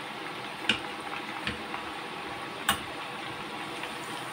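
A few sharp clinks of a metal potato masher knocking against a stainless steel pot while boiled potatoes are mashed, the loudest nearly three seconds in, over the steady sizzle of leeks frying in oil.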